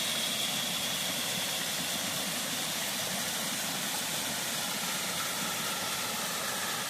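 Steady rushing of water from a creek waterfall pouring into its pool.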